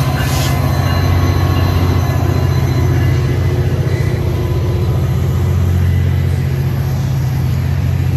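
Tri-Rail commuter train hauled by a diesel locomotive rolling by, with a steady low drone from the locomotive's engine and faint thin high squeals over it.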